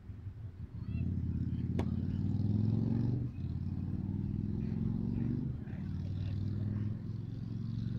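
Engine of a passing motor vehicle starting about a second in and accelerating, its pitch rising a little in several steps with short breaks between them, typical of gear changes. A single sharp click sounds about two seconds in.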